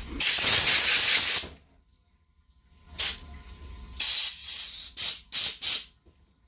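Compressed-air blow gun blowing out a 4L60-E transmission oil pump: one long blast of about a second and a half, then a pause and several short blasts.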